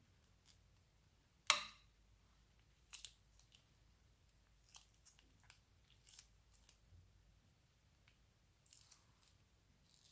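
Scissors snipping once through the tip of a plastic piping bag about a second and a half in, followed by scattered faint crinkles and ticks of the thin plastic bag being squeezed and handled.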